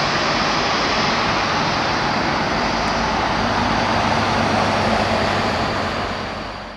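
Jet engines of a Boeing 787 airliner running with a steady, loud rush as it rolls on the runway for takeoff. The sound fades out in the last second.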